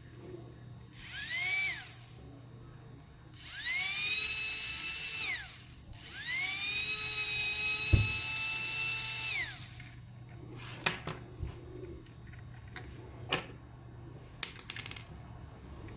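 A small high-speed electric motor whines in three runs; each rises in pitch as it spins up and falls as it winds down, the last run the longest. A single thud comes during the last run, and a few sharp clicks follow near the end.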